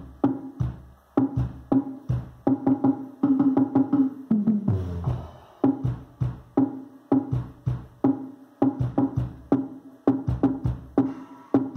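Electronic dance music with a rhythmic percussive beat and heavy bass, played loud through a car-audio trio box with a JBL Selenium Tornado subwoofer driven by a Stetsom EX3000 amplifier. A falling bass sweep comes about halfway through.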